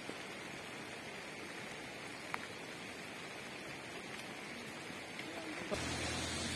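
Steady hiss of light rain falling, with one sharp click about two seconds in. Near the end the noise jumps louder and a low hum joins it.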